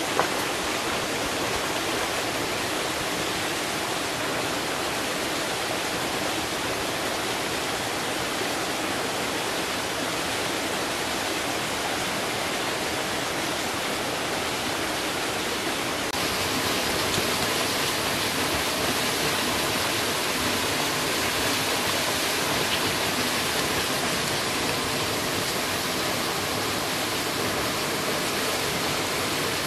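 Rushing water of a rocky forest stream splashing over small cascades, a steady hiss that gets a little louder and brighter about halfway through.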